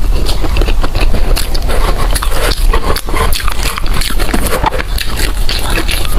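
Close-miked chewing and biting of food: dense, irregular wet mouth clicks and crackles.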